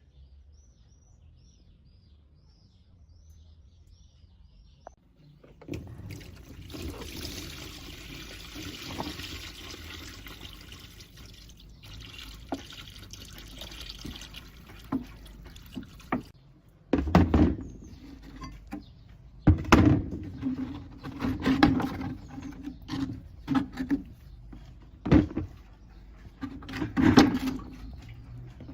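Liquid pouring or splashing for about ten seconds, followed by a string of sharp knocks and clunks, which are the loudest sounds.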